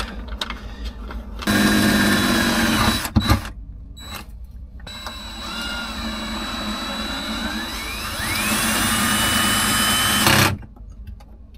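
A handheld electric power tool running in two spells. The second spell is longer, with a whine that rises and then holds steady.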